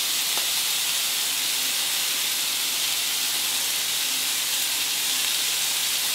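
Ham-wrapped scallop skewers sizzling steadily in hot olive oil in a frying pan, searing on their first side.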